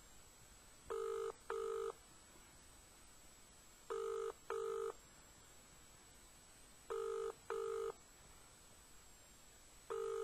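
Telephone ringback tone in the double-ring pattern used in New Zealand: two short tone bursts, then a pause, the pair repeating about every three seconds, three full times with a fourth beginning near the end. The called line is ringing and nobody answers.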